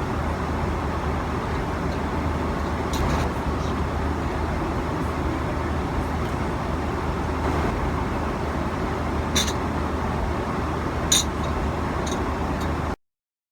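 Steady roar of an airliner cabin in flight, the engine and air noise with a low hum underneath, broken by a few faint clicks. The sound cuts off abruptly near the end.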